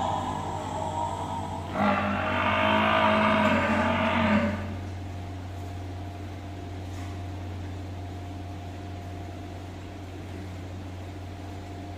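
A water buffalo calls once: a single moo lasting about two and a half seconds, starting about two seconds in, over a steady low hum.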